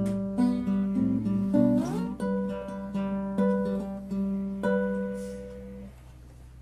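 Nylon-string classical guitar fingerpicked: a melody of single notes and chords with a slide up in pitch about two seconds in; the last notes ring and fade out about six seconds in.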